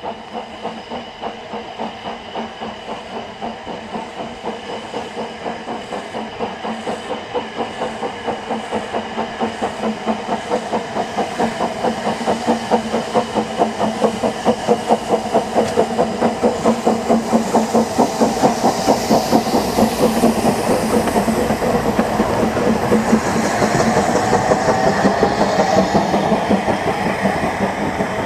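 Steam locomotive Blanche, a narrow-gauge Hunslet saddle tank, piloting the Double Fairlie James Spooner, working a train in with a steady rhythm of exhaust beats that grows louder as it approaches and passes close. Steam hisses from the engine, strongest in the second half.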